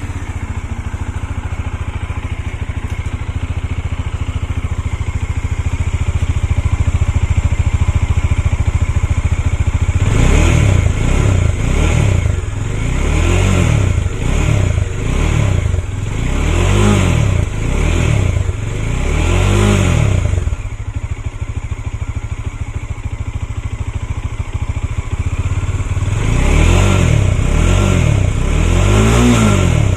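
Bajaj Dominar 400's single-cylinder engine running through its exhaust: it idles steadily, then about ten seconds in is revved in a run of short throttle blips, each rising and falling in pitch. It settles back to idle and is blipped a few more times near the end.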